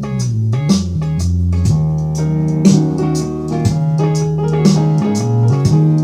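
Recorded music with a strong bass line and a steady beat, played back through a home-built clone NAD op-amp preamplifier into speakers, with its bass and treble turned up from flat.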